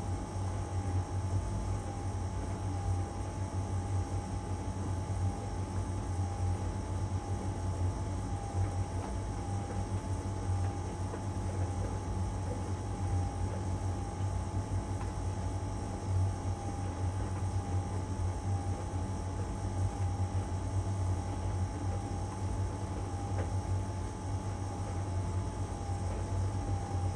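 LG heat pump tumble dryer running steadily mid-cycle in its drying phase: a constant low hum with a steady higher tone over it, no pauses or changes.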